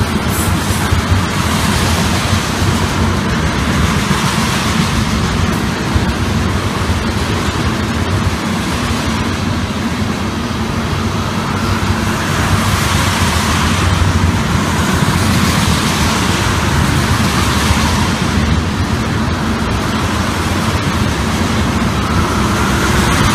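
Freight train of tank cars rolling past: steady rumble and hiss of steel wheels on rail, swelling and fading every few seconds as the cars' wheel sets go by.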